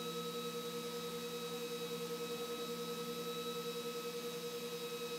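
Gentle Typhoon radiator fan running steadily at full speed, about 2130 rpm: an airy whir carrying a steady, somewhat high-pitched whine.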